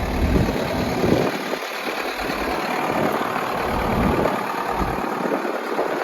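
New Holland LB75B backhoe loader's diesel engine idling, with a low rumble on the microphone that comes and goes.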